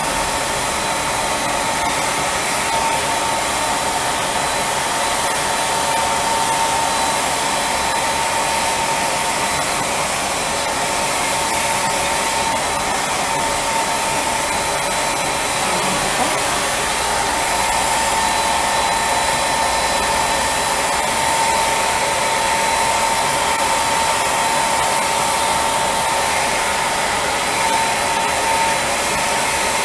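Spray tan machine's turbine blower running steadily, air and tanning solution hissing out of the handheld spray gun, with a steady high whine over the hiss.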